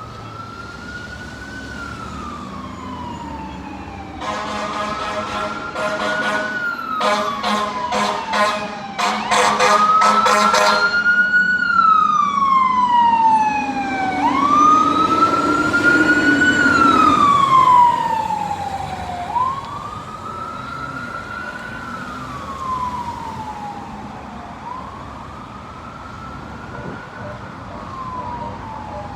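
Fire rescue squad truck's siren on a wail, rising quickly and falling slowly about every five seconds. From about four seconds in it sounds its air horn in four long blasts. The truck's engine rumble swells to its loudest in the middle as it passes, and then the siren fades off into the distance.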